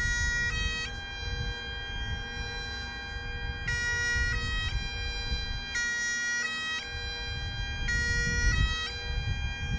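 Great Highland bagpipes playing a slow melody: the drones hold a steady tone under the chanter's notes. A low rumbling noise runs underneath.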